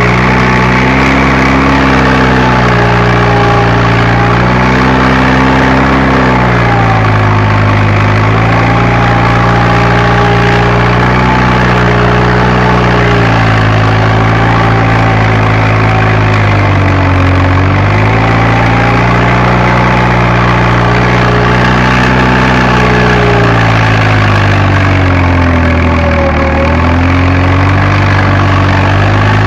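Fiat Agri tractor's diesel engine running steadily under working load. Its pitch wavers, sagging clearly about halfway through and again near the end before picking back up as the engine takes and sheds load.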